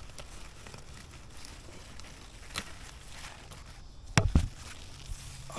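Quiet movement and handling noises in a pumpkin patch, with a few light clicks, then two dull thumps in quick succession about four seconds in.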